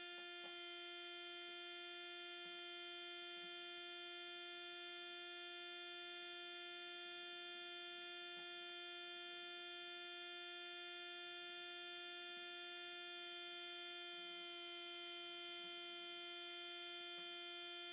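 A steady pitched drone with many overtones, holding one pitch and level throughout.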